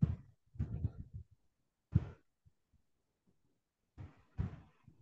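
A few short, soft, low thumps and rustles at irregular moments: near the start, about a second in, at two seconds and again around four seconds.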